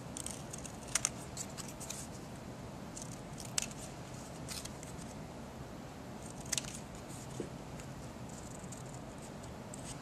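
Small scissors snipping through a strip of paper folded in half, a handful of short, sharp cuts spread out with pauses between them, two of them in quick pairs.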